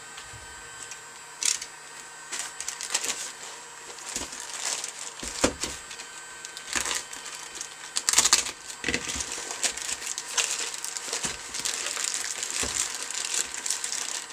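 Plastic courier mailer bag being handled, slit with a snap-off utility knife and torn open: irregular crinkling and rustling of the plastic with sharp crackles, loudest about eight seconds in.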